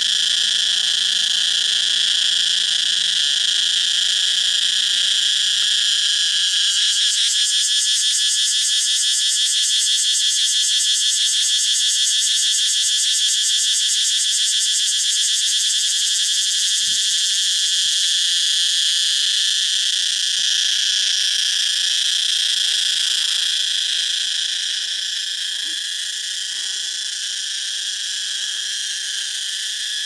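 Cicadas calling in a loud, continuous high-pitched drone with a fast pulsing texture, easing off a little near the end.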